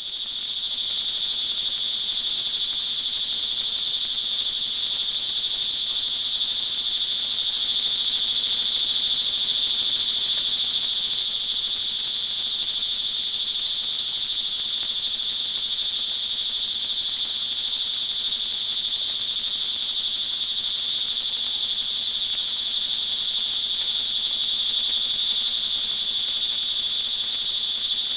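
A dense chorus of crickets trilling, high-pitched, steady and unbroken, fading in at the very start.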